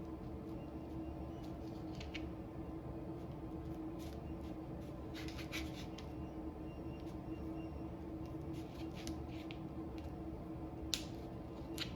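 A knife cutting through a slab of set chocolate fudge, with scattered short scrapes and a sharp knock near the end, over a steady low hum.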